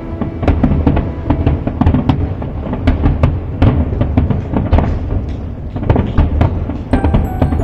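Fireworks display in a rapid barrage, shell bursts banging several times a second over a continuous low rumble, with music playing underneath.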